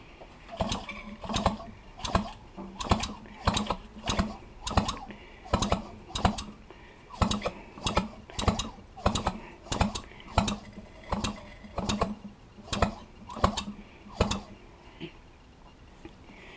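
Solex moped's single-cylinder two-stroke engine being turned over slowly by hand, giving a regular mechanical click or knock about one and a half times a second that stops near the end. The engine is being cranked to make its fuel pump draw petrol, as a test of the pump.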